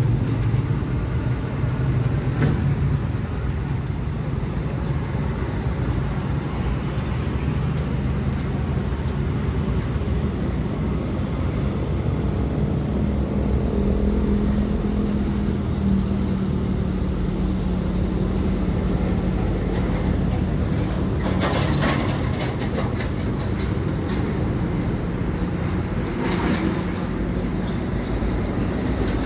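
Heavy diesel engine of construction machinery running steadily, its pitch shifting as it works. Short bursts of rattling come twice in the later part.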